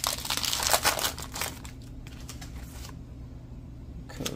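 Foil wrapper of a Pokémon card booster pack crinkling as it is torn open by hand, busiest in the first second and a half, then dying down to quieter handling.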